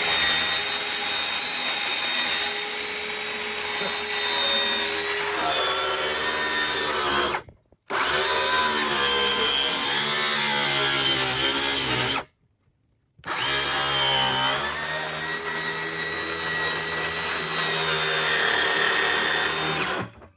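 DeWalt cordless circular saw cutting through a blue plastic barrel, its motor hum shifting in pitch as the blade loads and eases in the plastic. The sound breaks off sharply twice, once for a moment and once for about a second.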